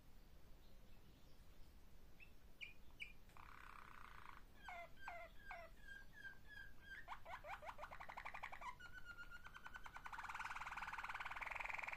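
Malinois (Waterslager) song canary singing: a few short chirps and falling whistled notes, then rapid rolling trills that run on into one long, louder roll near the end.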